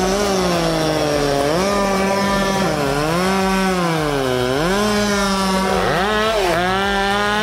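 Two-stroke chainsaw cutting wood at high revs. The engine pitch sags under load several times as the chain bites into the cut, then climbs back.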